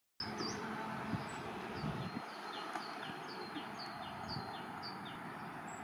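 A songbird repeating short falling whistled notes, about two a second, over a steady outdoor background hiss.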